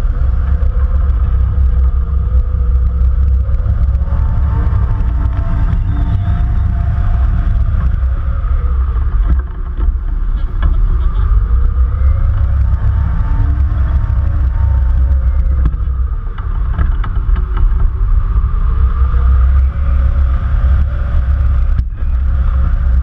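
Airflow over a wing-mounted camera's microphone during a hang glider flight: a loud, steady low rumble of wind buffeting, with fainter tones sliding up and down.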